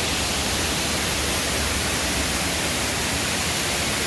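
Steady rushing of flowing water, an even hiss with no changes.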